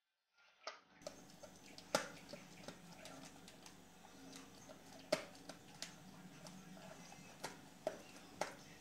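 A German shepherd chewing something hard: irregular sharp crunches and clicks, a few of them loud, over a faint steady hum.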